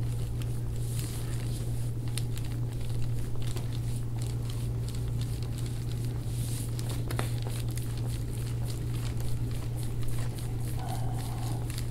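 Hands rubbing and pressing into a patient's back during deep-tissue massage, giving soft rustling and scattered faint clicks over a steady low hum.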